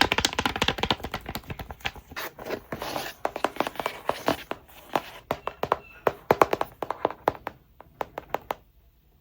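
Rapid tapping and clicking by hands on hard objects, with a stretch of rustling handling about three seconds in, then fewer, sharper taps that stop shortly before the end.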